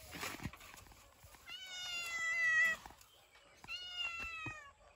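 A tabby cat meowing twice: two long, drawn-out meows, the first longer, each falling slightly in pitch. The cat is begging for fish.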